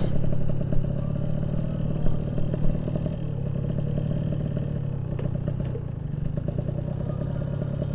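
Yamaha RX-King 135cc two-stroke single-cylinder motorcycle engine running at low, steady revs.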